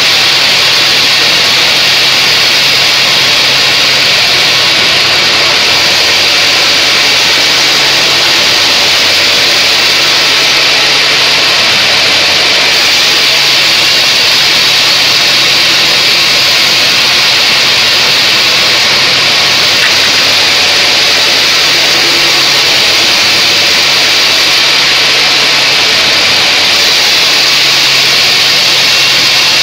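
Sawmill bandsaw ripping a mahogany beam into boards: the blade cutting steadily through the wood in a loud, even high-pitched rush over a low machine hum.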